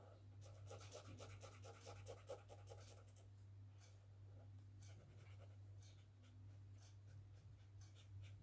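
Faint scratching of a brown marker tip on sketchbook paper as an area is coloured in: quick back-and-forth strokes for the first few seconds, then slower, separate strokes. A steady low hum runs underneath.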